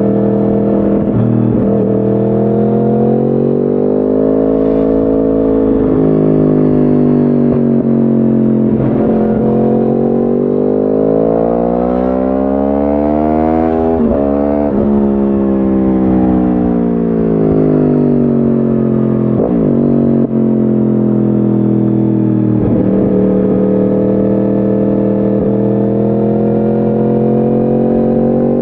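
2010 Yamaha R1's crossplane inline-four running through a decatted Akrapovic exhaust, under way, its pitch climbing and falling with the throttle. It climbs to a peak about halfway through, then drops sharply, drops sharply again a few seconds later, and climbs steadily near the end.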